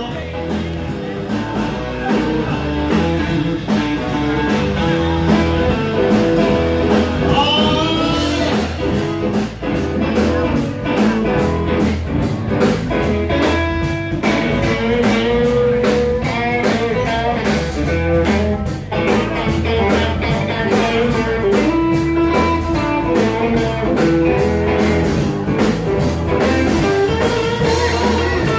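Live band playing at full volume: electric guitars over a steady drum beat.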